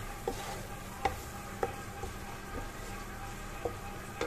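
Spice masala sizzling in hot oil in a non-stick kadai as it is stirred with a spatula, with several sharp knocks and scrapes of the spatula against the pan. It is the bhunai stage, the oil already separated from the masala.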